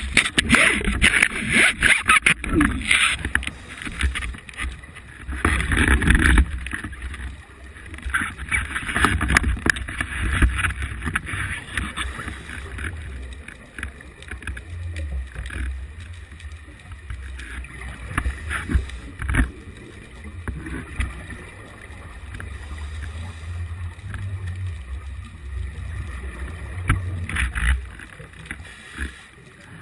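Underwater sound picked up through a camera housing: a steady low rumble of water, with rough bubbling, rushing bursts every few seconds. The bursts are strongest in the first ten seconds and fainter later.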